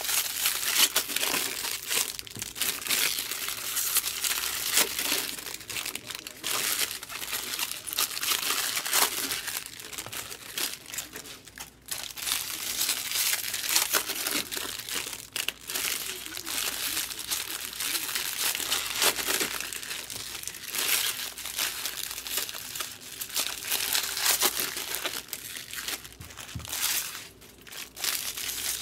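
Foil wrappers of baseball-card packs crinkling as the packs are handled, a continuous crackly rustle with brief lulls about twelve seconds in and again near the end.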